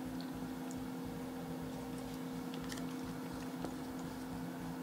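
Countertop air fryer running, a steady even hum from its fan and motor, with a few faint rustles and ticks of muffin cases being peeled and muffins being bitten.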